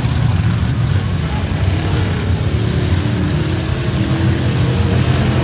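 V8 stock-car engines running in a demolition derby, a loud steady low rumble, with an engine's note standing out in the middle.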